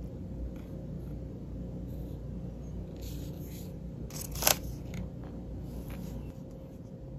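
Light handling sounds of fingers on an iPhone and its plastic screen-protector alignment frame, with one sharp click about four and a half seconds in, over a steady low hum.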